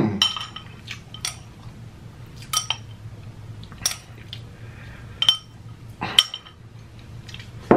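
Chopsticks clinking against a ceramic bowl while scooping noodles: about seven sharp clinks, roughly one a second, each with a brief ring.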